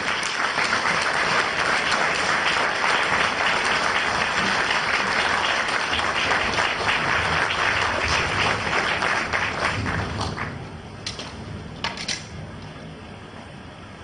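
Audience applauding in a hall after a play, dense clapping that dies away about ten seconds in, with a few last single claps.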